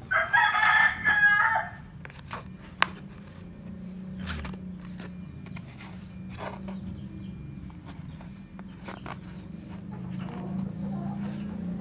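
A rooster crows once, loudly, for about a second and a half at the start. After that come scattered light clicks and taps as the parts of a black plastic welding mask are handled and snapped together.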